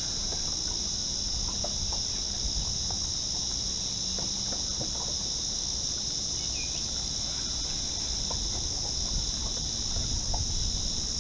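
A steady, high-pitched chorus of cicadas droning without a break, with a low rumble underneath.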